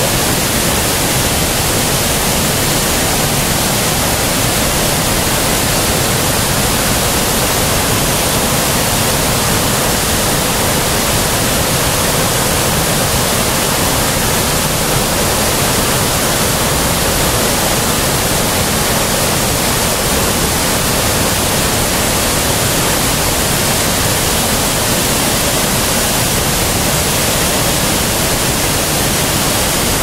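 Waterfall cascading over rock boulders: a loud, steady rush of water.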